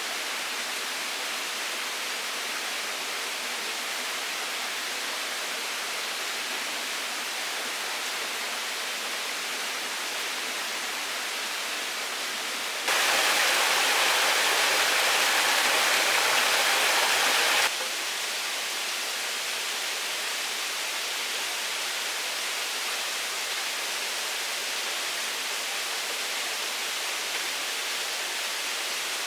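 Steady rush of running water from a forest stream. A louder stretch of about five seconds in the middle begins and ends suddenly.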